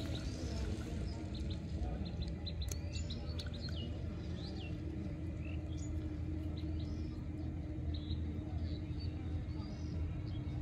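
Small birds chirping outdoors: short high chirps and quick rising and falling whistles scattered throughout, over a steady low background noise with a faint steady hum.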